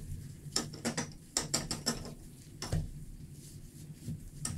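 A damp microfiber cloth in a gloved hand wiping around the inside of a bathroom sink basin: a string of short, sharp rubbing strokes at an irregular pace.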